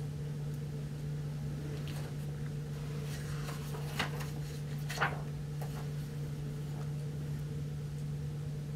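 A page of a large hardcover picture book being turned: a soft paper rustle about three seconds in, then two sharp paper flicks a second apart, over a steady low hum.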